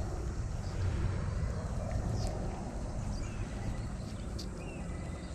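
Outdoor ambience: a steady low rumble, with a few faint short chirps and clicks scattered through it.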